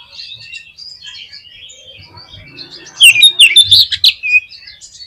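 Oriental magpie-robin (kacer) singing a varied, chattering song, with a loud run of rapid, sharp, high notes about three seconds in that lasts about a second.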